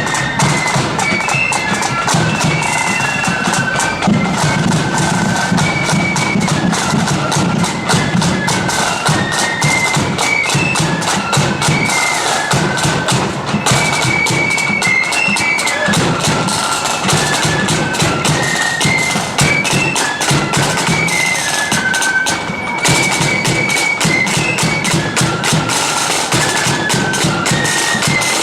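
Marching band playing a tune: a high, shrill melody line over steady, rapid drumming.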